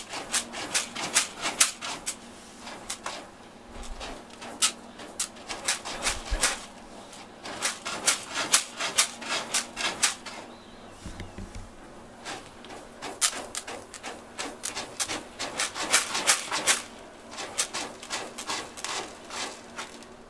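A cat digging in a plastic litter box, its paws scraping through the litter in quick strokes. The scratching comes in several spells with short pauses between them.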